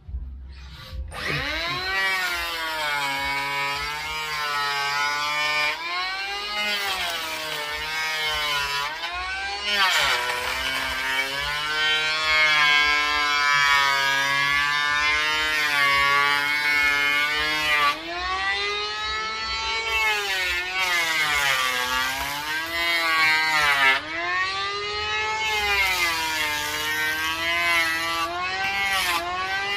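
Electric hand planer starting up about a second in and running as it is pushed along a wooden beam, its motor whine repeatedly falling and rising in pitch as it cuts.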